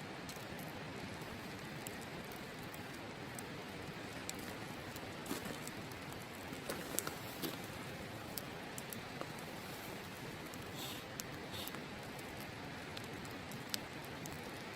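Wood campfire crackling, with scattered sharp pops and snaps, a busier run of them a few seconds in, over the steady rushing of a river.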